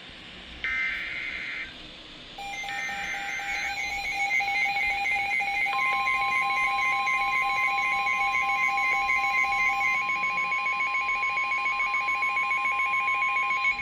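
Emergency Alert System SAME header data bursts: two short, harsh digital buzzes in the first few seconds. Then a rapidly pulsing alert beep sounds, joined about six seconds in by the steady NOAA Weather Radio warning alarm tone, both held to the end. Together they signal an incoming severe thunderstorm warning.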